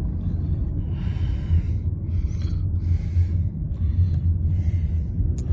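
Steady low rumble of a car's road and engine noise heard from inside the moving car, with several soft, breathy hissing sounds on top every second or so and a sharp click near the end.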